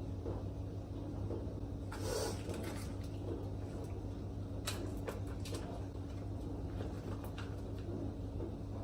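Kitchen handling sounds: a few light clicks and knocks and a brief rustle about two seconds in, over a steady low hum.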